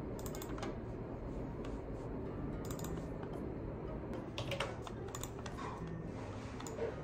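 Irregular clicking of a computer mouse and keyboard during desk work at a computer, over a steady low background hum.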